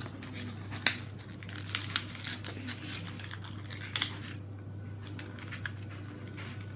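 Plastic toy packaging crinkling and tearing as it is opened by hand, with scattered sharp crackles.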